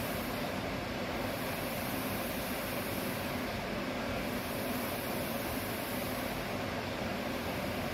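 Medical ventilator running with a steady hum, and a high hiss that swells and fades about every three seconds.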